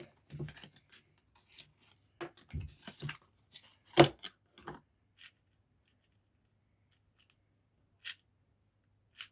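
Plastic speed cubes being handled: scattered clicks and clacks, with one sharp knock about four seconds in and a quiet stretch before two more clicks near the end.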